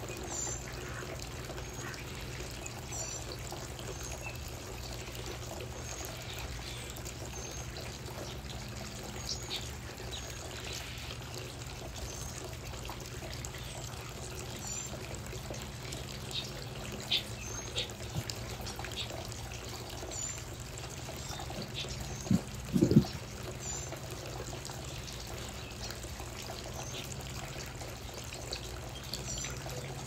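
Water trickling steadily, with short high bird chirps every few seconds. Two brief, louder low sounds come about three-quarters of the way through.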